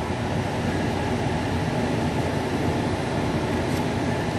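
Steady mechanical background noise, even and unbroken, with a faint click near the end.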